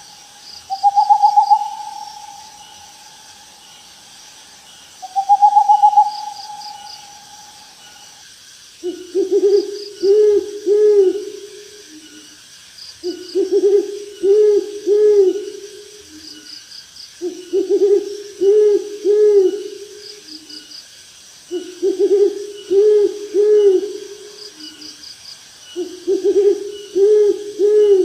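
Owl hooting: two long, higher, wavering calls in the first few seconds, then from about nine seconds in, bouts of four or five lower hoots repeated roughly every four seconds. Underneath is a faint, steady chorus of night insects with short, high chirps.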